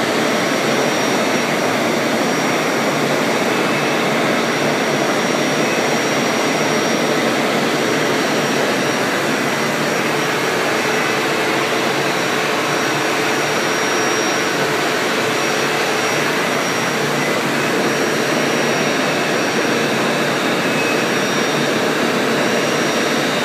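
5-axis CNC milling machine cutting the blades of a turbocharger compressor wheel under flood coolant: a steady, loud hiss of coolant spray and cutting, with a thin, high, steady spindle whine above it.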